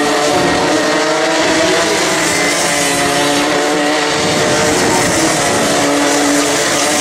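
Several two-stroke racing kart engines running hard on track at once, their pitch shifting up and down as they take the corner, loudest as the pack draws near toward the end.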